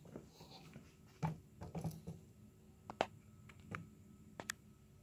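A scattering of faint, short clicks and light knocks, about eight in all, as a measuring gauge is handled and moved toward the engine's cylinder bore.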